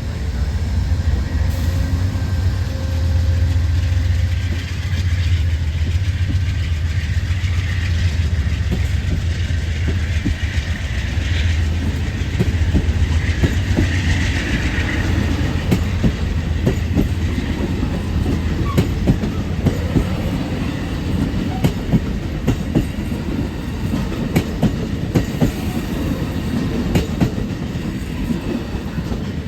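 Amtrak Southwest Chief passenger train rolling past, a low diesel drone from its GE P42DC locomotives strongest in roughly the first dozen seconds, then giving way to the clickety-clack of the cars' wheels over the rail joints, the clicks coming thicker in the second half.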